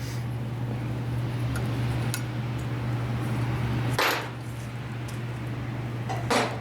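Hand sanding of a knife blade: sandpaper wrapped around a sanding block rubs along the blade in a steady scratching. About four seconds in it stops with a sharp metallic clink, and a second clink comes near the end, over a steady low hum.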